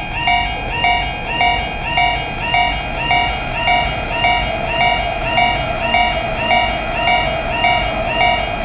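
Japanese level-crossing warning bell ringing steadily, about two strokes a second. From about three seconds in, the rushing noise of a passing train builds up under it.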